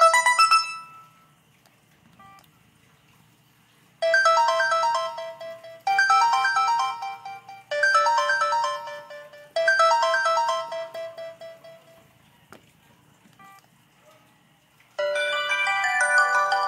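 Samsung ringtones played on a ZTE Z222 phone. A short, bright melodic ringtone phrase repeats four times, about every two seconds. Near the end a different, denser chiming ringtone begins.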